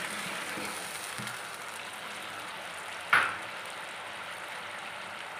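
Sugar, ghee and a little water sizzling and bubbling in a non-stick pan over a low flame as the sugar melts into syrup. The hiss is steady, with a single sharp knock about three seconds in.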